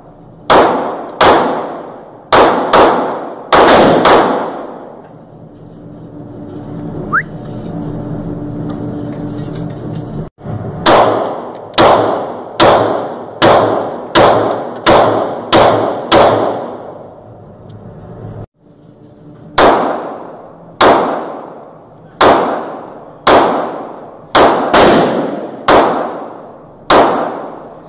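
Hi-Point C9 9mm pistol firing: about two dozen single shots, each with a long echoing tail, in three strings spaced roughly a second apart, with pauses of several seconds between the strings.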